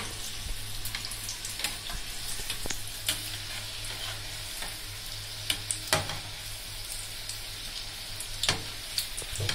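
Besan-battered green chilies deep-frying in hot oil, sizzling steadily, as a metal slotted spoon stirs them, giving a few sharp clicks against the pan.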